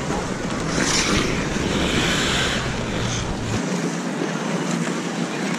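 Wind noise on the camera microphone while ice skating, with the hiss of skate blades scraping the ice, louder in short stretches about one and two seconds in. The low wind rumble drops out about two-thirds of the way through.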